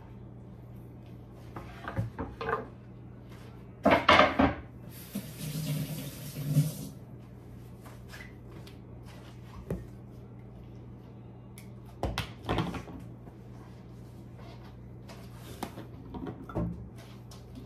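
Kitchen handling noise: scattered knocks and clatters of things being moved and set down, with the loudest cluster about four seconds in and more near twelve and sixteen seconds. A couple of seconds of hiss come early on, and a steady low hum runs underneath.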